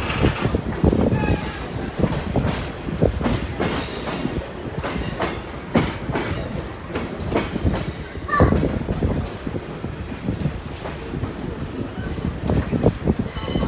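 Passenger railcar in motion, heard from aboard: a steady rumble with irregular clacks and knocks from the wheels running over the rail joints.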